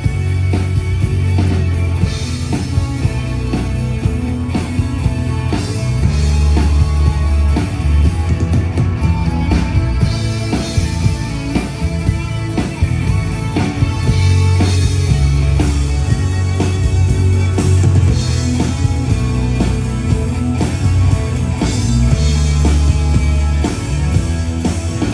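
Live rock band playing an instrumental break, with no vocals: drum kit, guitar and a heavy bass line.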